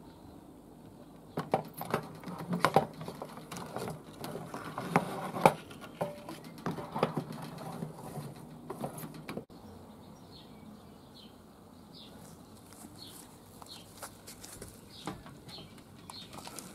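Metal tongs clinking, knocking and scraping against the steel firebox and wood-chip tray of a charcoal smoker, a run of clattering for about eight seconds that stops abruptly. After it only faint bird chirps are left.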